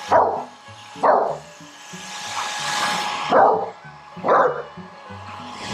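American bully dog barking in short, falling barks at a blowing hair dryer: two barks a second apart at the start, then a rush of blown air for about two seconds, then two or three more barks.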